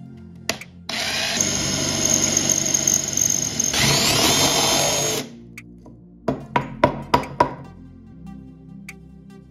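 Cordless drill boring a steel twist bit through a galvanized steel angle bracket, running for about four seconds with a high whine that rises in pitch near its end before it stops. A quick run of five sharp knocks follows.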